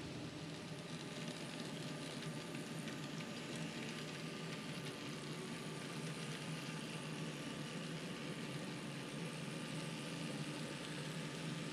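N scale model freight train running on the layout track: a steady hiss and low hum from the locomotive motors and wheels on the rails, with a faint even whine.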